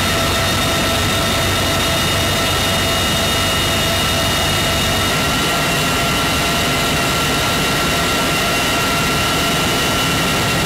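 Cabin noise inside a CH-53E Super Stallion helicopter in flight: its three turboshaft engines and rotor drive make a loud, steady rumble with a high whine of several steady tones on top. The pitch of the whine shifts slightly about halfway through.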